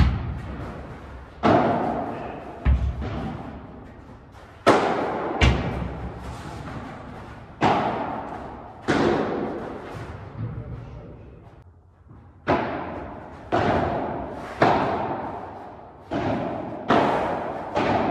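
Padel rally: sharp pops of the ball off the padel rackets and the court, one every second or so at irregular intervals, each echoing in a large indoor hall.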